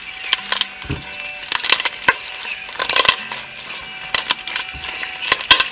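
White slime packed with foam beads and small plastic beads, squeezed and kneaded by hand, giving off irregular crunchy clicks and crackles. The clicks are loudest about halfway through and near the end.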